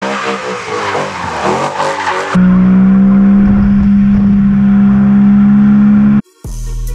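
BMW E92 M3's V8 engine running hard under a broad rushing noise, then held at a steady high engine note for about four seconds before cutting off abruptly. Music begins near the end.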